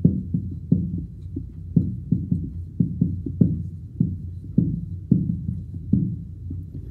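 Marker pen writing on a whiteboard: a quick run of short knocks and scrapes, about three a second, as each stroke of the characters is drawn, tailing off near the end. A steady low hum runs underneath.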